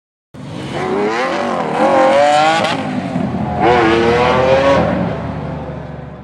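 Supercar engine revving hard, its pitch climbing twice with a short break between, then fading.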